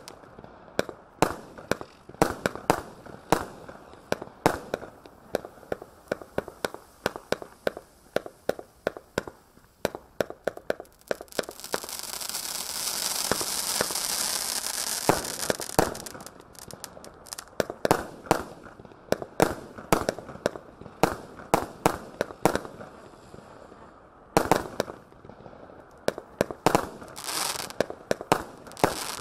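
A Phantom Category 3 firework cake firing a long string of shots, a few sharp bangs a second. A few seconds of dense crackling from crackle stars come around the middle, and a quick cluster of shots near the end.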